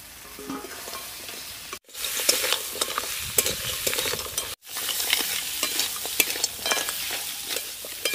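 Fried crab pieces and claws being stirred into sizzling masala in a metal wok, the metal spatula scraping and clicking against the pan as the crab is sautéed in the spices. The sizzle is softer at first and gets louder after the sound breaks off briefly about two seconds in, then breaks off again briefly midway.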